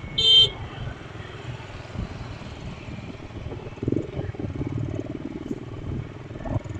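Motorcycle-heavy street traffic: a steady low engine rumble and road noise, with a short, loud horn beep about a quarter second in.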